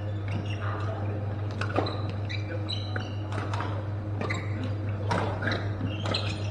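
Badminton play: sharp racket strikes on shuttlecocks at irregular intervals, with short high shoe squeaks on the court floor, over a steady low hum.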